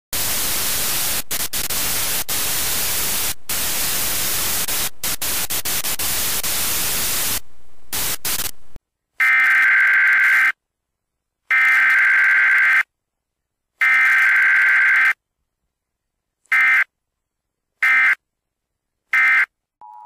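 Television static hiss, cutting out briefly several times, for about the first nine seconds. Then the Emergency Alert System's digital header tones follow: three harsh buzzing data bursts of a little over a second each, separated by silence, then three short bursts.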